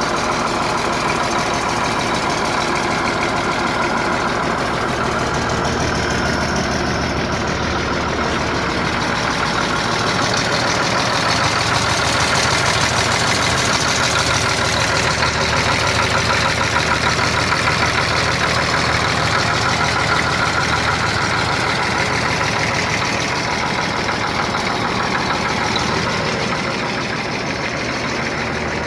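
A machine's combustion engine runs steadily at idle. It gets louder from about ten seconds in and eases off again near the end.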